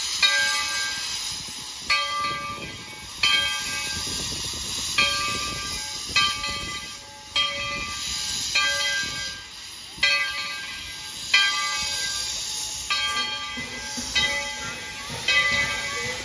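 Bell of ET&WNC No. 12, a 4-6-0 steam locomotive, ringing in steady strokes about every second and a half, over a continuous hiss of steam venting from the cylinders.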